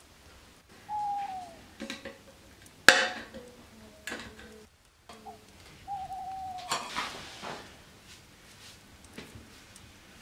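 Masking tape pulled off its roll with a short falling squeal, then a sharp snap as it tears. Then a metal paint can's lid is pried open with a screwdriver, with another short squeal and scraping.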